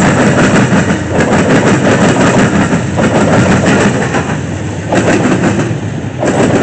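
CSX freight train passing close by: trailing diesel locomotives under power, one of them a GE Dash 8 (C40-8W), give way to double-stack container well cars. Loud, steady rumble with rapid clicking of wheels over the rails.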